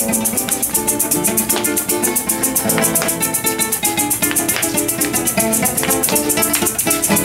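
Live llanera folk music: a cuatro strummed briskly while maracas shake a fast, even rhythm.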